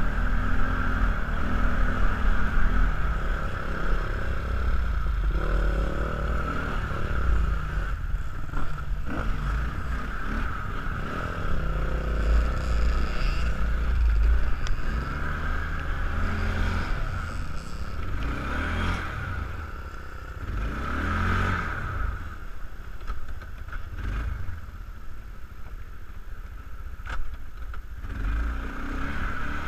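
Kawasaki ATV engine running while riding off-road, its revs rising and falling, with scattered knocks and rattles from the rough ground.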